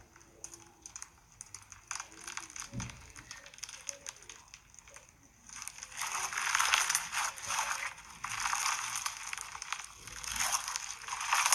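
Crunchy slime being squeezed and pressed, crackling and popping. It is faint and sparse at first, then louder and denser from about halfway in.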